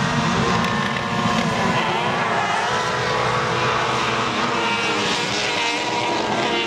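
Several F600 autograss racing cars with 600cc motorcycle engines revving hard together, their overlapping engine notes rising and falling as the field gets away from the start.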